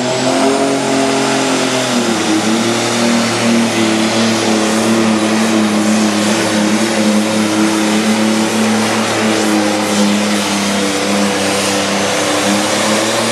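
Pro stock pulling tractor's turbocharged diesel engine running flat out while dragging a weight-transfer sled, with a faint high whine above it. The pitch dips briefly about two seconds in, then holds steady.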